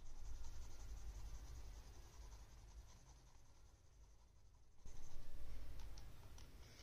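Pencil scratching on paper in continuous drawing strokes, starting suddenly and growing louder again about five seconds in, with a few light ticks near the end.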